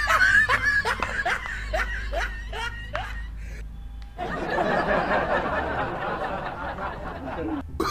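A run of short, quick laughs over the first three seconds, then after a brief pause a rough rushing noise lasting about three and a half seconds.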